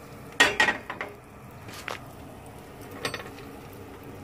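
Frying pan being moved on a gas stove's metal grate: a quick cluster of clanks and knocks about half a second in, then single knocks near two seconds and three seconds.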